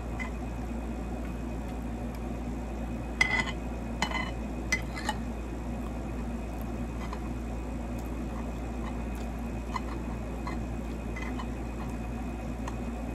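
Metal spoon scraping and clinking against a ceramic plate while eating, with a cluster of sharp clinks about three to five seconds in and scattered lighter clicks after, over a steady low hum.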